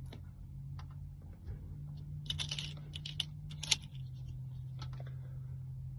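Scattered light clicks and taps of small parts being handled at a locksmith's work, busiest in the middle with one sharper click, over a steady low hum.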